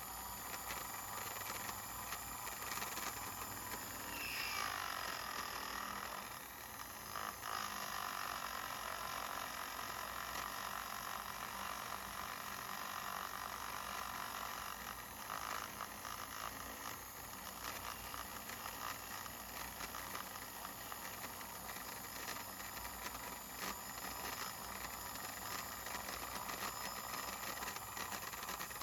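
A small electric motor running with a steady whine; its pitch drops about four seconds in, then holds steady.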